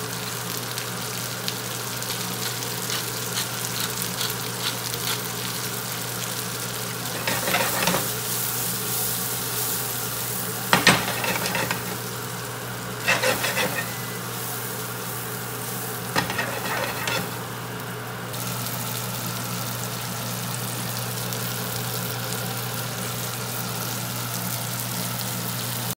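Snow peas sizzling steadily in butter in a frying pan. A few short, louder bursts come from the peas being moved about in the pan, with one sharp knock about eleven seconds in.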